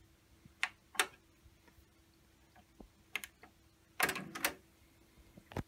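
Soft-touch transport buttons on a Technics RS-BX828 cassette deck being pressed, each giving a sharp click, as the deck is put into record and record-calibration mode. There are single clicks about a second in and about three seconds in, a short rattle of clicks from the deck's mechanism about four seconds in, and one more click near the end.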